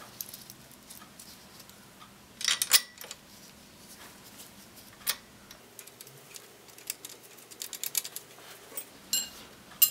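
Small metal axle hardware clinking and clicking as it is fitted by hand onto an electric bike's rear axle. Scattered light taps, loudest in a quick run of clinks about two and a half seconds in, with more near the end.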